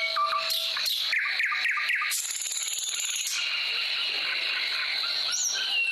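Bird calls, chirps, whistles and squawks, over a steady high hiss like insects, as a nature sound track laid under the opening graphics.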